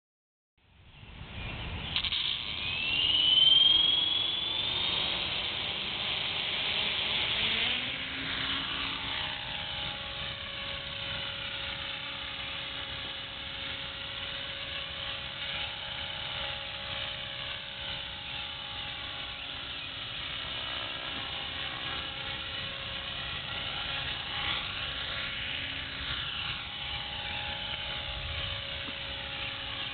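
EXI 450 electric RC helicopter spooling up: the motor whine climbs in pitch over the first few seconds, then settles into a steady whine and rotor hum as it hovers, its pitch wavering a little.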